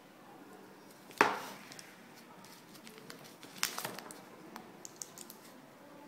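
Handling noise from a power cord's plastic plug and paper label: one sharp knock about a second in, then a quick run of clicks and rustles near the middle, and a few faint ticks after.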